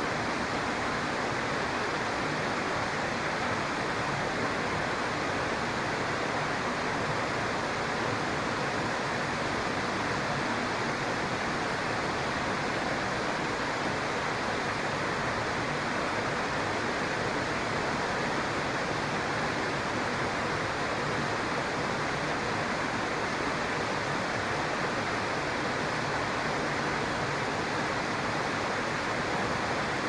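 Steady rushing of a flowing stream, an even noise that holds unchanged throughout.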